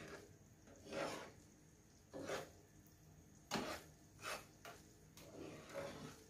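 A spatula scraping across the bottom of a nonstick frying pan while stirring caramel sauce, in about five separate strokes.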